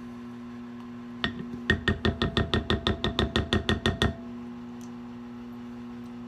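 Spoon clinking against a speckled enamel mixing bowl in quick, even strokes, about six a second, while a sauce is stirred. Each stroke leaves the bowl ringing briefly. The stirring starts about a second in and stops about four seconds in.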